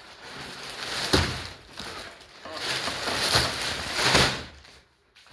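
A plastic-wrapped mattress being heaved and turned over: the plastic wrapping rustles in two long swells, with a thump about a second in and another heavier one near the end.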